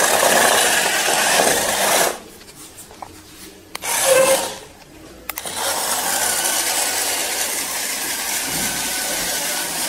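Electric drive motors of a small homemade robot car whirring as it drives, in three runs: about two seconds, a short burst about four seconds in, then steadily from about five seconds on.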